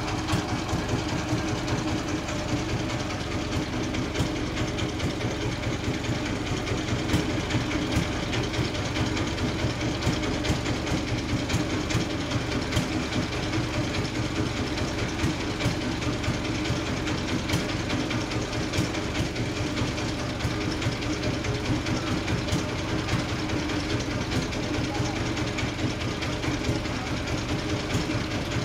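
Sawmill machinery engine running steadily with a rapid, even pulsing beat.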